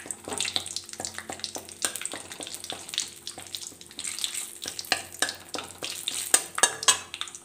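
Bay leaves frying in hot oil in a kadhai for a tadka, the oil sizzling with irregular crackles and pops while a metal spatula stirs and scrapes them against the pan.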